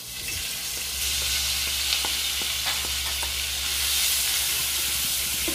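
Diced ham sizzling in hot butter in a frying pan, the sizzle starting suddenly as the ham goes in and then holding steady. A slotted spatula clicks and scrapes against the pan a few times as the pieces are stirred.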